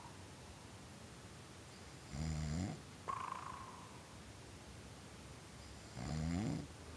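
Heavy snoring: two loud rattling inhaled snores about four seconds apart, each rising in pitch, the first followed by an abrupt breathy exhale that fades away.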